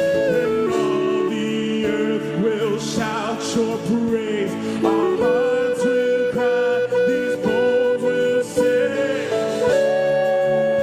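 Live gospel worship music: held chords from the band, with guitar and a melody line that bends and glides over them.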